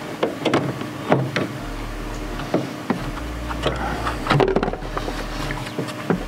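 Plastic coolant expansion tank being unclipped with pliers and lifted out of the engine bay: a string of irregular clicks and knocks as the tool, hose clip and plastic bottle are handled.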